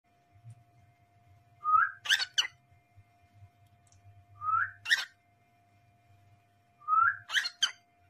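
Cockatiel whistling: a short rising note followed by one or two sharp, harsh chirps, the same phrase repeated three times with pauses between.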